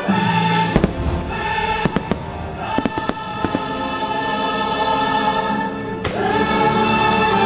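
Fireworks shells bursting with several sharp bangs over the show's orchestral and choral soundtrack playing through loudspeakers.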